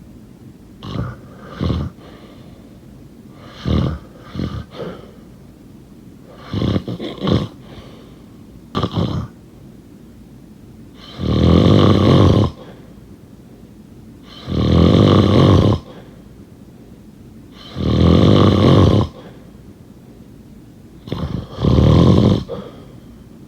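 A person snoring in their sleep. It starts as short, broken snorts, then settles from about halfway into four long, loud snores, each lasting about a second and coming every three to four seconds.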